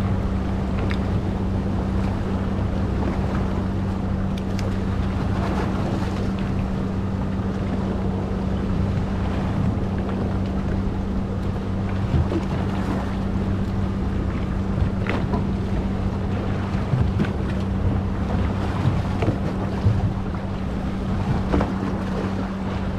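A boat's engine running with a steady low hum, under wind buffeting the microphone and the wash of waves against the hull.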